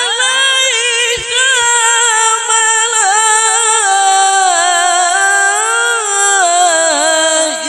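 A male qari reciting the Quran in the melodic tilawah style, holding one long ornamented phrase whose pitch wavers and trills, sliding lower near the end.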